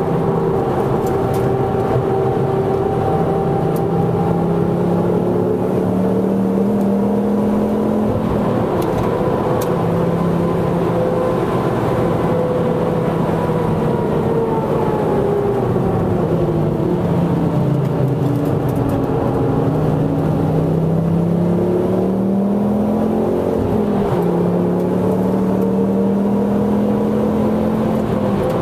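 Mk2 Ford Focus ST's turbocharged five-cylinder engine under track driving, heard from inside the cabin over tyre and road noise. Its pitch climbs and sags with the revs, dropping suddenly about eight seconds in and again about twenty-four seconds in.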